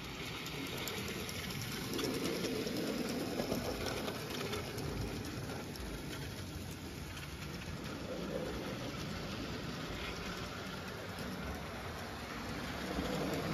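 Model train locomotive and freight cars rolling along the layout track: a steady rumble with faint scattered ticks, swelling a little about two seconds in and again near the end.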